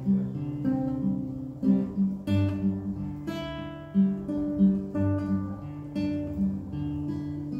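Classical nylon-string guitar played solo, fingers picking and brushing through an Em7, C2, G6 chord progression, with the bass note shifting at each chord change.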